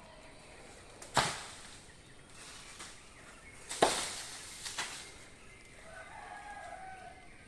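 Two heavy, sharp knocks about two and a half seconds apart, each with a short ringing tail, and a couple of lighter knocks just after the second. Near the end there is a faint pitched call.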